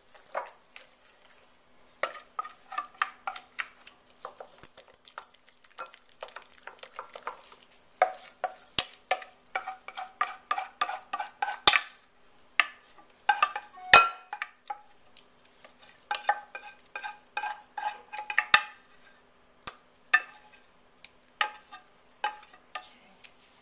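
Wooden spoon stirring and scraping in a glass mixing bowl and against a stainless steel saucepan: irregular runs of short clinks and taps, many with a brief ringing tone, as the thick white sauce is scraped out of the pan and stirred into the corn mixture.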